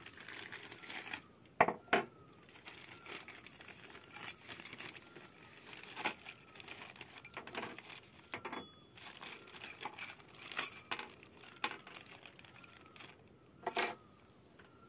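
Small metal hand tools from a chainsaw's tool kit clinking and rattling as they are handled and set down on a wooden table, with a plastic bag crinkling. Two sharp knocks come about one and a half to two seconds in, and another near the end.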